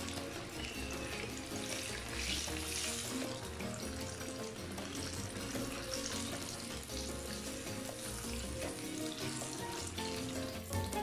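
Flour-coated chicken pieces deep-frying in hot oil, with a steady sizzle and crackle, over background music.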